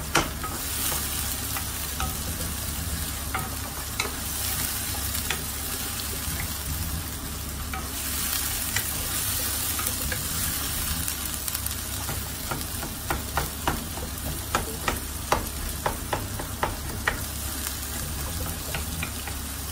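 Minced onion with whole spices frying in oil in a frying pan, sizzling steadily while a wooden spatula stirs it. In the second half the spatula knocks and scrapes against the pan in a quick run of clicks. The onion is being sautéed toward golden brown.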